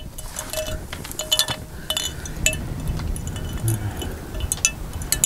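Hanging solar lights being hung up, clinking as they are handled: scattered light clinks and short ringing taps.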